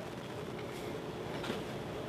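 Steady low background noise with no distinct sound event: room tone.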